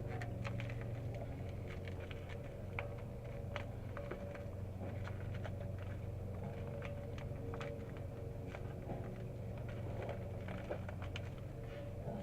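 Scattered light clicks and taps of hand work at irregular intervals over a steady low hum.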